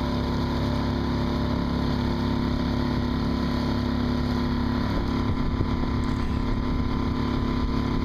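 Outboard motor of a canoe running steadily at cruising speed, a constant engine hum. Its tone shifts slightly about five seconds in.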